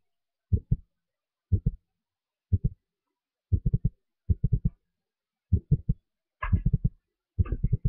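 Short, low, muffled thumps in quick groups of two to five, repeating about once a second with silence between. In the last two groups a brief higher-pitched sound is mixed in.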